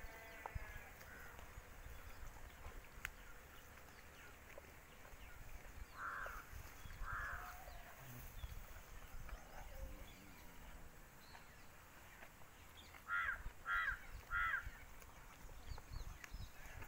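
Crows cawing: two short caws about six seconds in, then three louder caws in quick succession near the end, over a low background rumble.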